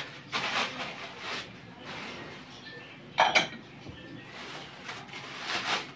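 Crumpled newspaper rustling and crinkling as ceramic plates are unwrapped and handled from a cardboard box, with a sharp double clink of dishes a little past three seconds in.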